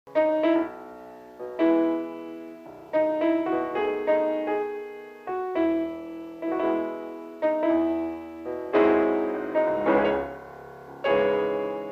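Solo piano music: struck notes that ring and fade away, played in short phrases.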